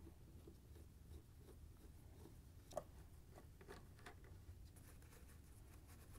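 Near silence with a few faint clicks and taps from handling the refrigerator's rear access panel as it is worked loose and pulled off. One click a little before the middle is slightly louder than the rest.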